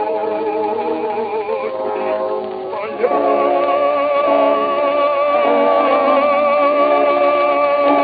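Music from an early gramophone record, with no high end: a melody of wavering vibrato notes over accompaniment. About three seconds in it grows louder and settles on a long held, wavering note.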